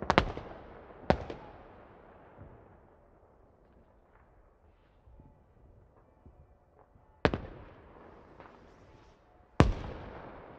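Loud explosive bangs, each dying away in an echoing tail: two in quick succession at the start, another about a second in, then two more, about seven and nine and a half seconds in.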